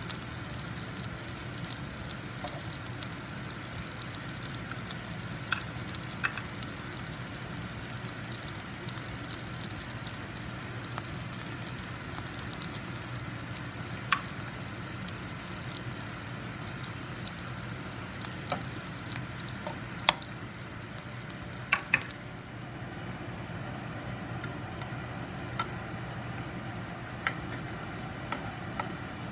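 Food frying in a pan, a steady sizzle, with scattered sharp clicks of a utensil against the pan as it is stirred.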